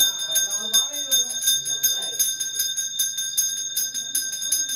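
Temple puja bell ringing rapidly and without a break during an abhishekam, a fast even run of strikes over a steady metallic ring.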